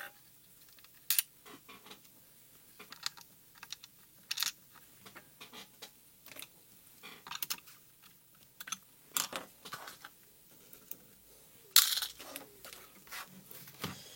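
Scattered light clicks and taps of a screwdriver and small screws working on the plastic case of a radio control transmitter as its four case screws go back in, with a sharper knock about twelve seconds in.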